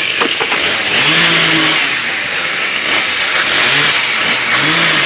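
Chainsaws running and cutting, a loud continuous engine rasp.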